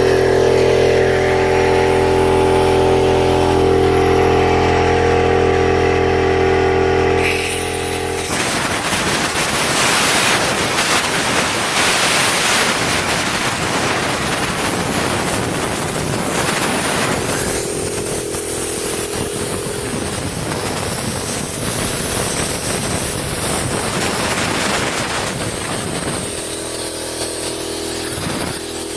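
Compressed air blasting out of the open drain valve of a Campbell Hausfeld oil-less air compressor's tank, blowing out accumulated water and rust. A steady pitched drone runs with the rush for about the first eight seconds, then gives way to a loud, broad hiss of escaping air.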